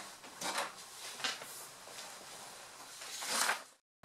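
Canon inkjet printer printing a page, with three short swishing passes of the print head and paper feed; the last, near the end, is the loudest.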